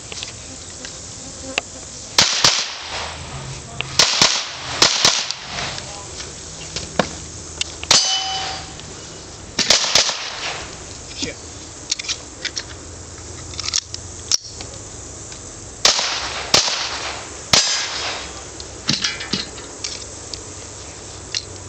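A string of pistol shots fired at steel plate targets, irregularly spaced, with the steel plates clanging and ringing as they are hit.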